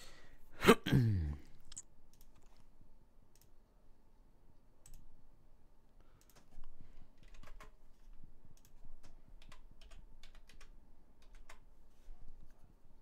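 Computer keyboard keys and mouse buttons clicking at scattered intervals. About a second in there is a brief, loud sound that falls in pitch.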